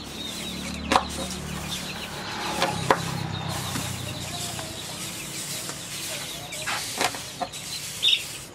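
Chickens clucking, with a few sharp knocks, about a second in, near three seconds and near seven seconds.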